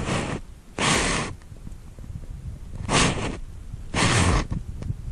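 A person breathing close to the microphone: four short, loud breaths in two pairs.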